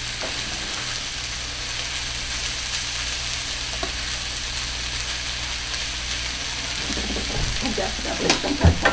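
Vegetables and brown rice sizzling in a hot skillet with a steady hiss while a metal spatula stirs them. Near the end come a few sharp knocks and scrapes of the utensils against the pan.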